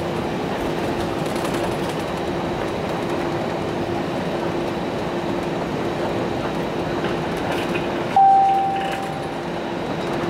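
Airliner cabin noise as the jet rolls along the runway after landing: a steady rumble from the engines and wheels with a steady hum through it. About eight seconds in, a single chime rings out and fades over about a second.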